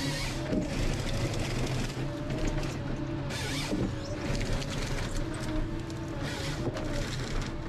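Ponsse Scorpion King harvester working with its H7 harvester head. The engine runs steady under a wavering hydraulic whine, and a short rasping burst comes three times, about every three seconds, as the stem is fed and cut to length.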